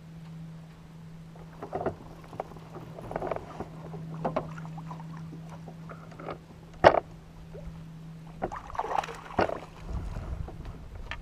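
Knocks and clatter of fishing gear against a plastic kayak while a bass is fought and landed with a net, with a louder, busier stretch of splashing and handling near the end. A steady low hum runs underneath and stops about eight and a half seconds in.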